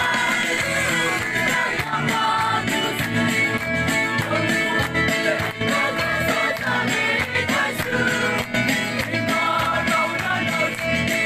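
Music: a song sung over a band with guitar and a steady beat.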